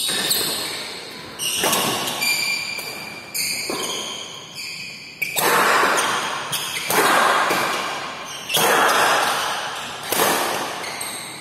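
Badminton rally in a large echoing hall: rackets smacking the shuttlecock about every second and a half, each hit ringing on in the room, with high squeaks of court shoes on the floor between hits.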